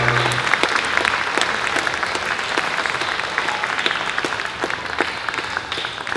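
Audience applauding just as the string orchestra's last low note, held on cello and double bass, stops about half a second in. The clapping slowly fades.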